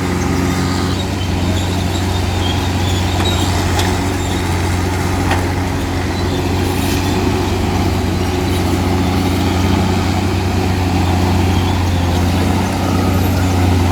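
Diesel engine of a Komatsu D65P bulldozer running steadily under load, with a deep even hum and a couple of faint clicks about four and five seconds in.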